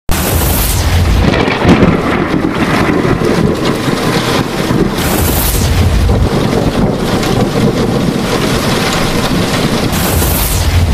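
Loud, continuous rumbling and hissing sound effect, like a thunderstorm, with a rushing high sweep at the start, about five seconds in, and again near the end.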